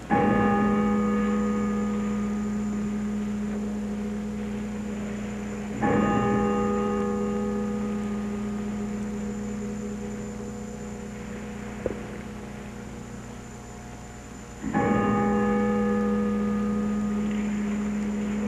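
A large, low-pitched church bell struck three times, each stroke ringing on and fading slowly before the next. The second stroke comes about six seconds after the first and the third about nine seconds later. It is rung at the consecration of the Mass, as the chalice is elevated.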